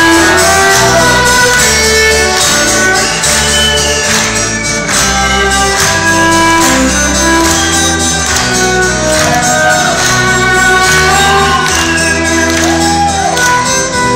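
Rock band playing live, the instrumental introduction to a song: a bass line changing notes about every second, steady drum beats, and sustained melody lines with occasional sliding notes.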